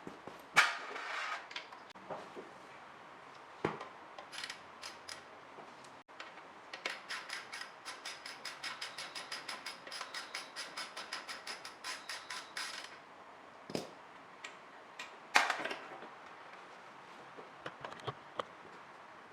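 Hand tools working on metal: a few sharp clinks and knocks, and in the middle a ratchet wrench clicking rapidly and evenly for about six seconds.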